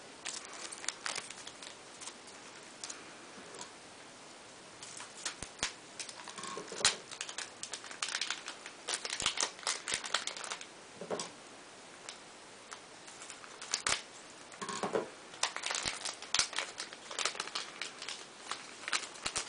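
Foil Yu-Gi-Oh booster pack wrappers crinkling and rustling in irregular bursts, with sharp little clicks, as packs are opened and cards handled.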